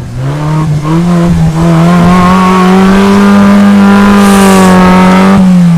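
Off-road 4x4 engine revving up hard and holding high revs for about five seconds, then easing off near the end.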